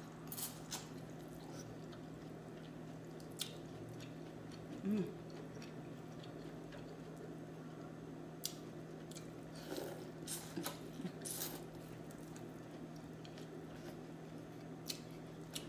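Close-miked eating sounds: a bite into corn on the cob, chewing, and wet squishes as the cob is dipped in thick sauce, heard as scattered sharp clicks and smacks. A brief hummed "mm" comes about five seconds in, over a steady low hum.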